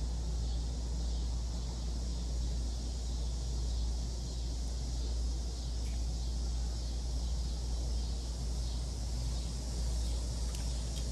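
Steady background noise: a constant low hum with an even high hiss, unchanging throughout.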